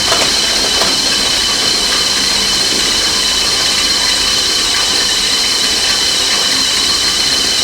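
Flex-shaft drain machine running steadily, spinning a coarse sanding head inside a broken PVC sewer pipe to grind out tree roots and rough up the pipe wall for lining. It is a steady hiss with a high whine.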